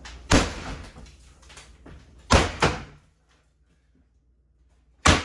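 Sledgehammer blows knocking apart a small wooden kitchen cabinet: four sharp bangs, one just after the start, two close together about two and a half seconds in, and one near the end.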